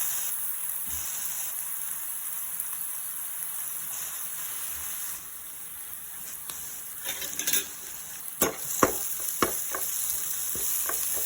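Crushed shallots, garlic and dried red chillies sizzling steadily in hot coconut oil as they are sautéed until roasted. From about halfway through, a spatula clicks and scrapes against the pan as they are stirred.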